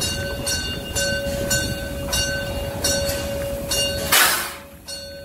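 Narrow-gauge steam tank locomotive 99 331 moving slowly with its bell ringing about twice a second. About four seconds in, a short loud burst of steam hiss.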